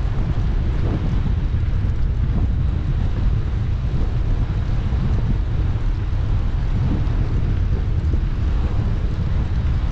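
Wind buffeting a GoPro's microphone on a moving bicycle: a steady low rumble with a light hiss above it.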